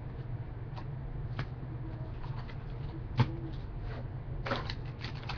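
Trading cards being handled and sorted, with a few scattered clicks and taps and a quick run of rustling clicks near the end, over a steady low hum.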